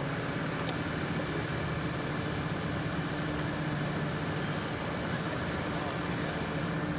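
A large engine running steadily at constant revs: an even low hum over a wash of outdoor noise.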